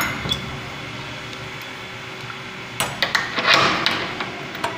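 Steel barrel bolt on a wooden door being slid shut and a padlock fastened on it: a sharp metal click at the start, then a run of metal clacks and clinking from about three seconds in, with a last click near the end.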